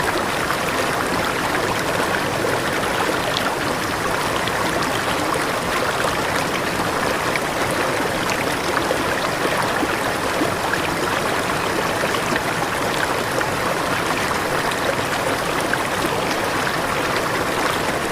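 Waterfall: falling water rushing and splashing in a steady, even wash of sound.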